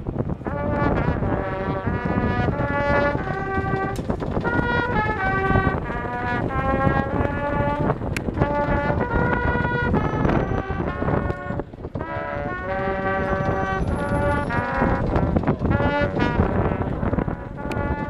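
A school drum-and-bugle band's brass section playing a national anthem in long, held notes, with a short break about two-thirds of the way through.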